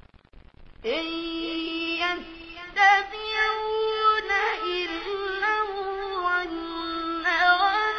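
A child reciting the Quran in melodic tajweed style, holding long notes with ornamented turns. The voice comes in about a second in, after a short pause between verses.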